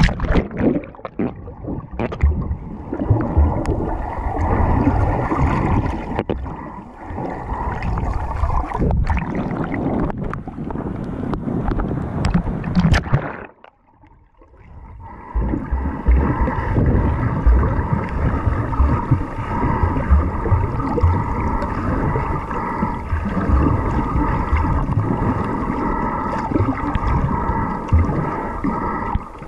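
Muffled underwater rushing and gurgling of water moving over a submerged action camera, with sharp splashes in the first couple of seconds as it goes under. The noise dips almost to quiet for about a second around the middle, then carries on steadily.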